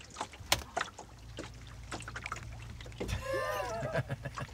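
A fly swatter smacking at black flies: several sharp slaps, the loudest about half a second in, over a low steady hum. A brief vocal sound comes about three seconds in.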